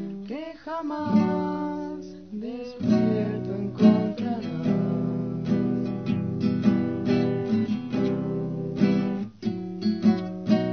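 Acoustic guitar strummed and plucked, with a voice singing a melody over it in the first few seconds.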